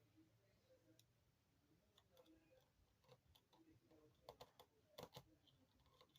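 Near silence with faint, scattered small clicks, more frequent in the second half: small screws and a screwdriver being handled on a phone's housing.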